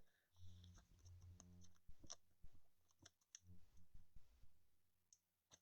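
Faint clicks and light rustles of trading cards being handled and flipped through, over a faint low hum.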